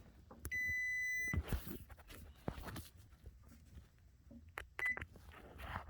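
A multimeter's continuity beeper sounds one steady, high beep lasting just under a second, then a short chirp near the end, showing the test leads closing a circuit. Light clicks and knocks of the probes and handling come in between.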